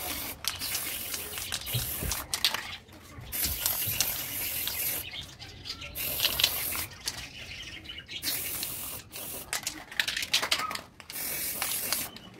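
Aerosol spray paint can spraying in a run of short hissing bursts, with brief gaps between them.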